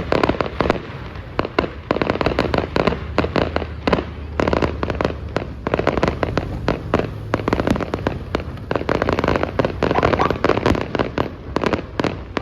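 Fireworks display: a rapid, dense volley of bangs and crackles, several a second, that starts suddenly and keeps going without a break.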